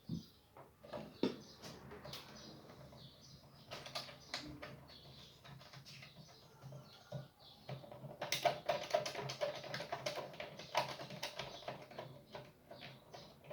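Irregular light clicks and taps, thickest from about eight to eleven seconds in, over a faint steady low hum.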